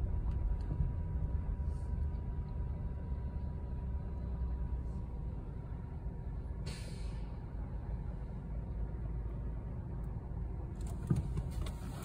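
Car cabin road noise in slow traffic: a steady low rumble, with a short burst of hiss a little past halfway through.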